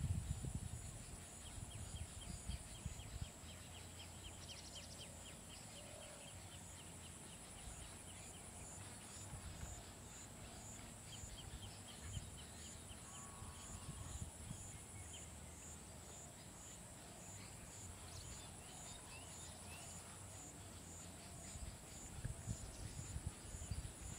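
Quiet wild ambience: a steady high-pitched insect drone with a fast pulse, a few bird calls with rapid ticking trills, and low rumbling noise near the start and again near the end.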